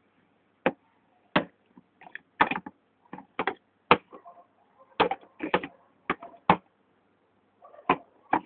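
Green plastic Speed Stacks sport-stacking cups clacking down onto a table and onto each other as a pyramid is stacked up: sharp plastic clicks at an irregular pace, a few per second, with a short pause before the last ones.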